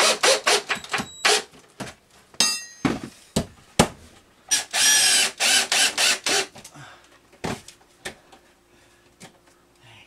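Cordless drill driving screws into a wooden 2x4 platform frame: one short run of the drill motor about halfway through, among a string of sharp knocks and clicks from the drill and boards, with a brief high squeak about two and a half seconds in. Quieter from about seven seconds on.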